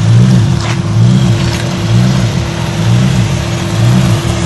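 Lexus V8 engine of a drift car revving in a steady rhythm, its pitch rising and falling about once every 0.7 seconds.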